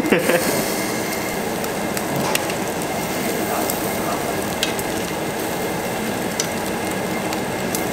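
Marinated pork ribs and pork belly sizzling steadily on a wire-mesh barbecue grill, with a few faint pops.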